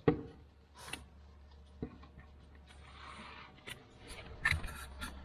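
Scattered metallic clicks, knocks and a brief scrape of a socket wrench working a tractor's oil drain plug, with a sharp click near the start being the loudest.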